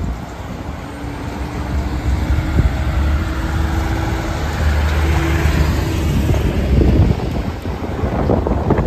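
Cars and a pickup truck driving past on a wet street, engine hum and tyre noise building to the loudest point around seven seconds in.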